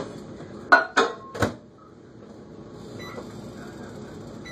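A few sharp clicks and knocks at a microwave oven, then about three seconds in the microwave starts running with a steady hum.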